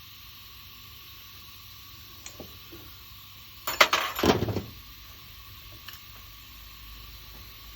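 A short clatter of metal objects clinking against each other, about a second long near the middle, with a few faint ticks before and after.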